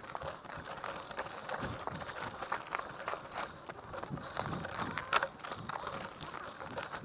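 Mountain bike rolling over a loose, rocky dirt trail: tyres crunching on gravel and stones, with frequent sharp clicks and rattles as the bike jolts over rocks. The loudest knock comes about five seconds in.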